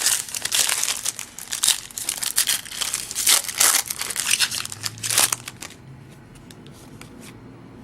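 Plastic trading-card pack wrapper crinkling and tearing as it is handled, in irregular bursts for about five seconds, then dying down.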